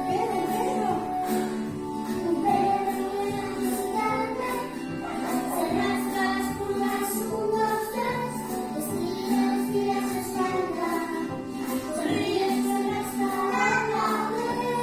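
A song playing: singing over instrumental accompaniment with a steady beat.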